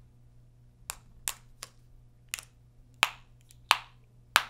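Sharp, irregular clicks and taps, about seven in four seconds, from a small cable plug knocking against a smartphone's case as it is fumbled toward the port.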